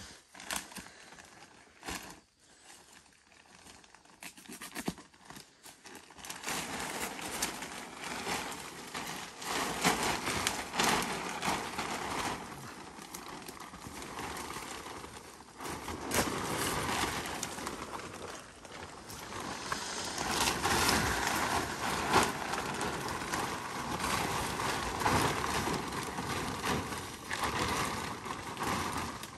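Plastic tarp rustling and crinkling as it is handled, with many small crackles. It starts about six seconds in, after a quieter stretch with a few knocks.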